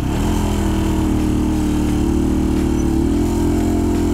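Italika VX250 motorcycle engine running under way, heard from the rider's own bike with wind noise. Its pitch lifts just after the start, holds steady, then wavers briefly about three seconds in.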